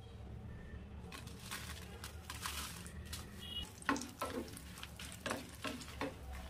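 Dried red chillies sizzling as they drop into hot oil in a frying pan, then stirred with a spatula, which knocks and scrapes against the pan several times from about four seconds in.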